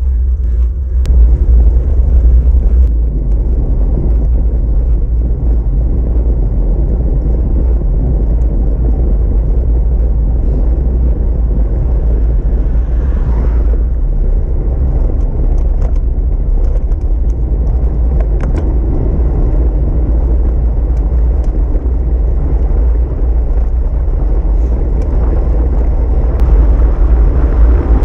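Wind rushing over the microphone of a camera on a moving bicycle, a loud, steady, low rumble with the tyres' road noise beneath it.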